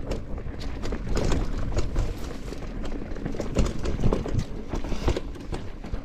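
Mountain bike rolling over a rough, rocky trail: tyres and bike clattering in an irregular run of knocks and rattles, over a steady low rumble.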